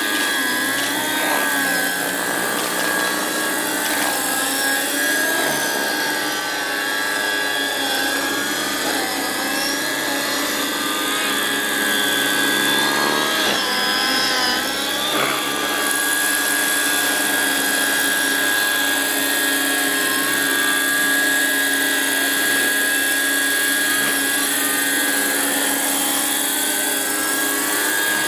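Electric-powered radio-controlled scale model of a Piasecki H-21 tandem-rotor helicopter in flight: a steady high motor whine over the rotor noise, with other tones rising and falling as it manoeuvres.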